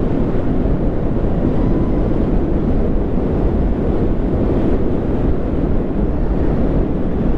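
Steady wind rush over the microphone of a camera on a Zero SR/S electric motorcycle riding at speed, mixed with the bike's road noise.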